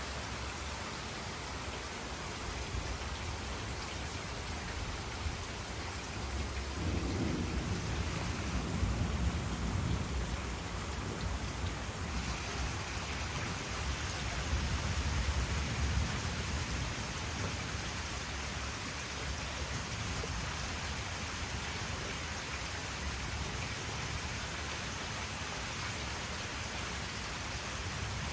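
Steady heavy rain, with a long rolling rumble of thunder that builds about a quarter of the way in and dies away roughly ten seconds later.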